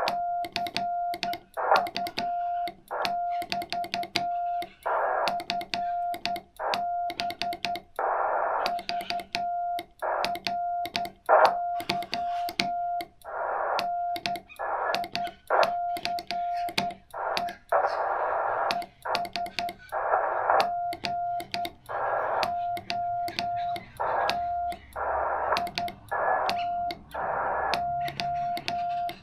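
Morse code (CW) from a ham radio transceiver: one steady mid-pitched tone keyed on and off in dots and dashes, with sharp clicks at the keying and bursts of band hiss in the gaps between characters.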